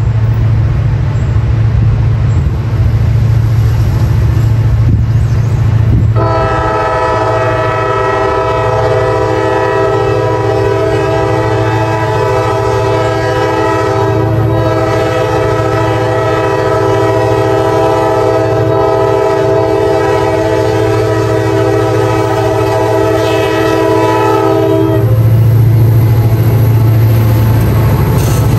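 Approaching freight train's locomotive air horn sounding one long blast, a held chord of several notes lasting nearly twenty seconds, as it nears a grade crossing. Under it runs a steady low rumble that grows louder after the horn stops, as the diesel locomotives come alongside.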